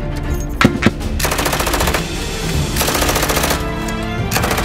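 Two short bursts of rapid machine-gun fire, each under a second long, over steady background music.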